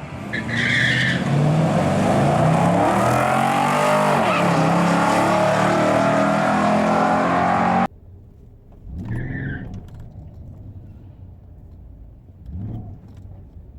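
Car engine at full throttle, its pitch climbing, dipping and climbing again through the gears, cut off sharply about eight seconds in. After that a fainter engine rises and falls twice.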